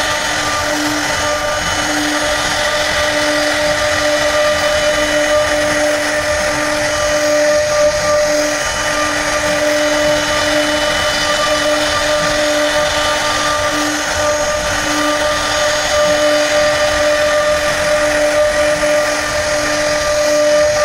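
Electric power tool running steadily at one unchanging pitch, a steady whine over a rough hiss, as it carves wood.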